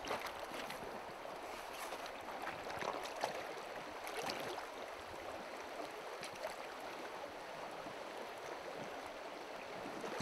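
Shallow stony stream running steadily, with a few light water splashes from wading steps and a hooked fish at the surface.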